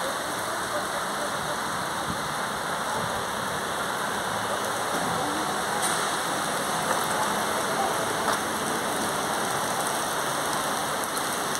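Steady rain falling on wet paving, an even hiss with a few louder drops ticking now and then.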